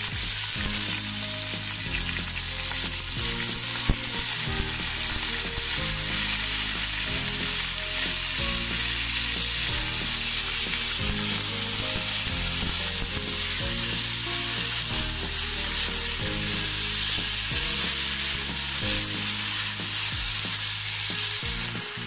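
Washed polao rice sizzling in hot oil with fried onions and whole spices, turned over with a wooden spatula: the rice being fried before the water goes in. A single sharp knock about four seconds in.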